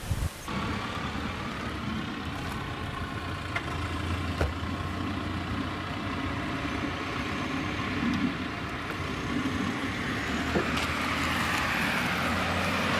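Car running: a steady low engine and road hum, with a few faint knocks.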